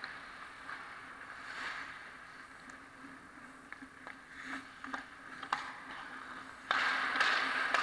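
Ice skate blades scraping and carving on the rink, with several sharp clacks of sticks and puck, then a sudden louder, hissing scrape of blades close by about seven seconds in.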